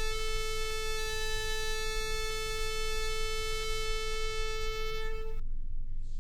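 Shofar blast: one long, steady, high note held until it breaks off about five seconds in.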